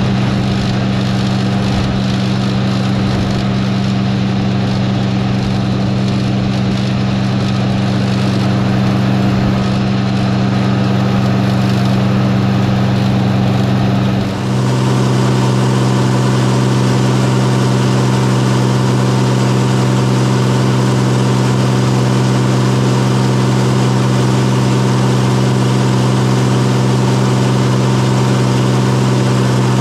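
Cockshutt 1955 tractor engine running steadily while it powers a New Holland 7220 discbine mower cutting hay. About halfway through there is a brief drop, and the sound abruptly turns brighter, with more hiss on top of the engine note.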